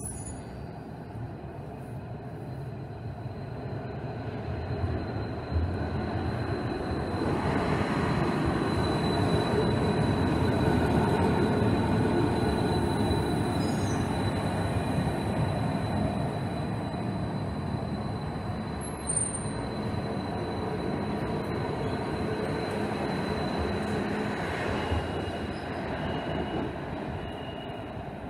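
Stadtbahn light-rail train moving through an underground station. Its rumble builds over several seconds, holds loudest through the middle and eases off near the end, with a thin, steady high whine running over it.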